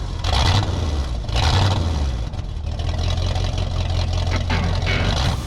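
An engine that has just started, running with a low rumble. It surges a couple of times in the first two seconds, then settles steady.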